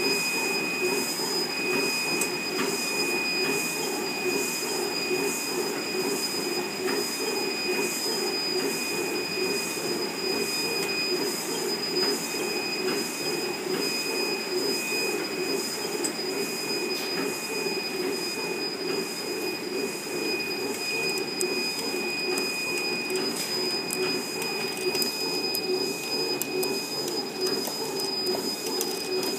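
Automatic candle printing machine running steadily, its chain conveyor carrying the candles with a continuous clattering rattle. Two steady high-pitched whines sit over the clatter.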